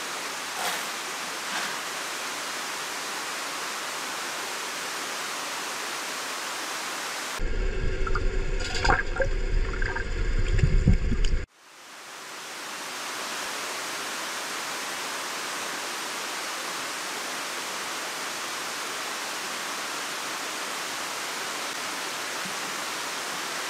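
Steady rush of water running into a salmon-farm fish tank. About a third of the way in, a few seconds of louder rumbling and knocks break in and cut off suddenly.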